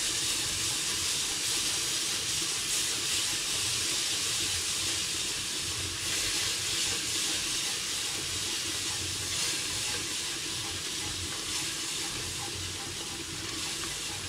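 Tomato paste and gram-flour base sizzling steadily in hot oil in a pot, easing slightly toward the end.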